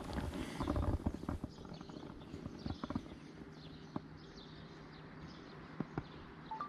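Irregular knocks and clicks, a cluster in the first second and a half, then a few single ones later.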